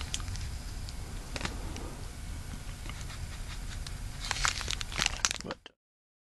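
Clear plastic wrapping on firecracker packs crinkling as it is handled, in scattered crackles that grow busier near the end before the sound cuts off suddenly.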